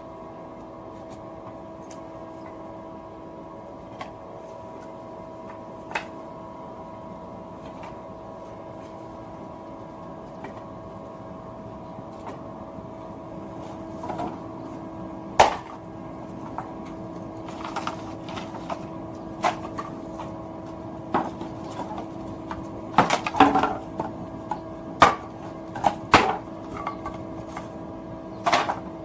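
Firewood being handled at a small wood-fired kiln: scattered knocks and clatters of wood, sparse at first and coming in quick clusters in the second half, over a steady hum.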